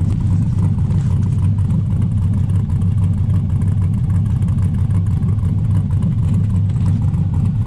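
LS-swapped 1972 Chevrolet C10's 6.0-litre LS V8 idling steadily just after a cold start at about −5 °C. It has the choppy idle of its Stage 3 cam.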